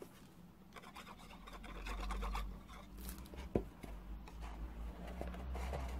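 Cardstock being handled and pressed into place by hand: soft rustling and rubbing with a few light taps, one sharper tap about halfway through.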